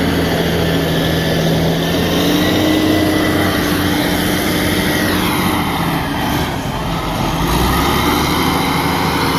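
Cat 980C wheel loader's diesel engine running hard as the loader maneuvers. About halfway through the revs drop and the loudness sags briefly, then the engine picks back up.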